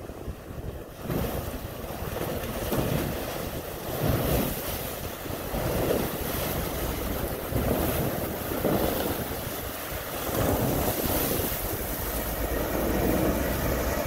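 Harbor tug's engine working under load as its steel hull breaks through sheet ice, with irregular grinding and cracking of ice slabs against the hull, over wind noise on the microphone.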